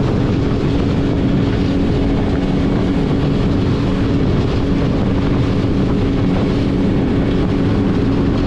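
Motorboat's engine running at a steady high speed, with the rush of spray off the hull as the boat travels fast over the water.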